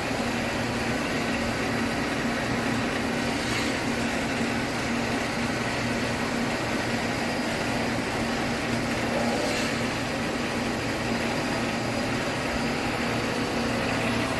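Perfect horizontal-spindle surface grinder running under power: a steady mechanical hum with a constant low tone.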